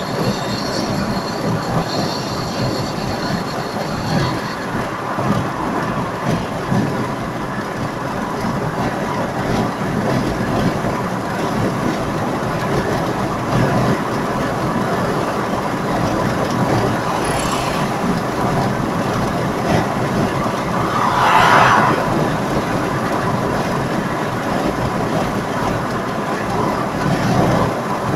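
Steady road and tyre noise with engine drone, heard inside a car's cabin at motorway speed. A brief louder swell comes about three quarters of the way through.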